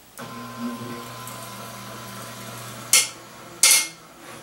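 Treadmill incline linear actuator motor humming steadily as it drives the press ram down onto a used oil filter. Near the end come two loud, sharp metallic cracks less than a second apart as the filter's steel can starts to give.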